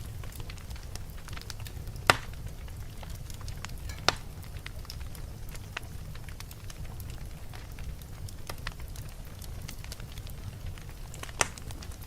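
Wood fire burning in a fireplace: a steady low rumble with frequent small crackles and three sharp pops, at about two seconds, four seconds and near the end.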